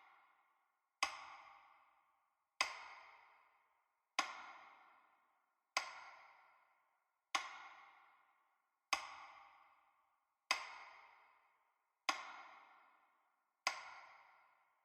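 A short struck ping, repeating evenly about every second and a half, nine times, each note ringing out and fading over about a second.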